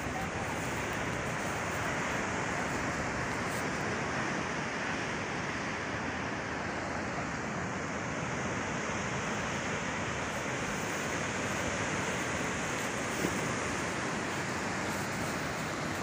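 Steady rush of sea surf breaking and washing along the shore below.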